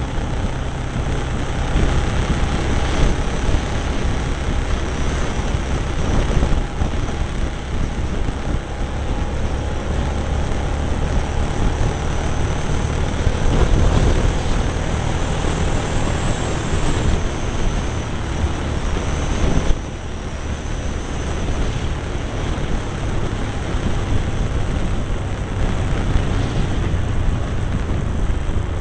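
Cagiva Navigator motorcycle's V-twin engine running steadily at road speed, with wind rushing over the microphone. The sound eases briefly about two-thirds of the way through.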